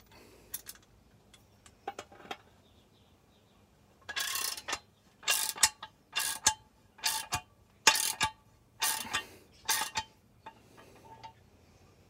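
A hand tool cranking the nut of a home-made puller in about seven short strokes, roughly one every 0.8 s, starting about four seconds in, after a few light clicks. The puller is drawing the crankshaft and main bearing of a Stihl MS460 chainsaw into the crankcase.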